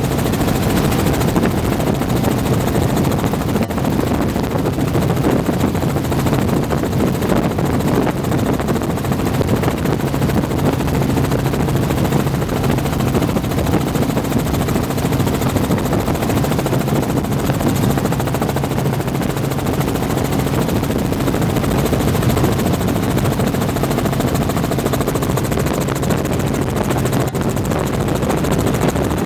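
Helicopter turbine and rotor noise, a loud steady drone with an even low hum and no change in pitch.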